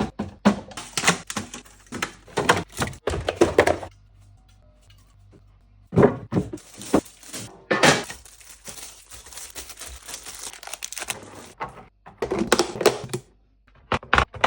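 Groceries being unpacked and put away: plastic packaging crinkling and items knocking and clattering as they are set down, in a small room.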